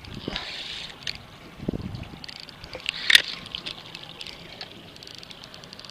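Spinning reel being wound and handled right against the microphone: scattered clicks and knocks, a short hiss near the start, and one sharp knock about three seconds in.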